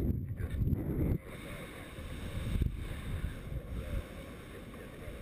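Airflow buffeting the camera microphone of a paraglider in flight: a loud low rumble that drops suddenly about a second in to a quieter, steady rush of wind.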